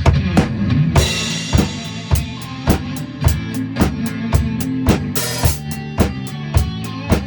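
A drum kit played in a steady beat, bass drum and snare driving it, over recorded backing music. A cymbal crash comes about a second in and another around five seconds in.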